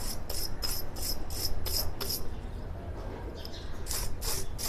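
Wire brush scrubbing a rusty bottom bracket cartridge in quick rasping strokes, about five a second, to strip rust and old grease. The strokes stop for about a second and a half past the middle, then start again.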